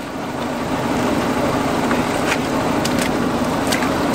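Lifted VW Jetta wagon's engine under throttle with its front tires spinning in mud on traction boards, building up over the first second and then holding steady, with a few sharp clicks of mud and grit striking the car.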